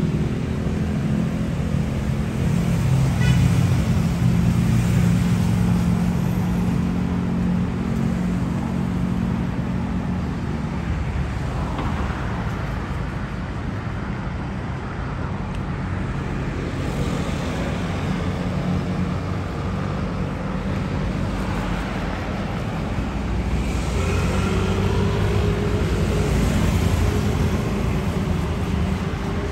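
Rush-hour city road traffic: motor vehicle engines running close by with a steady low hum, and cars passing every few seconds. Near the end, one engine's note rises slightly as a vehicle pulls away.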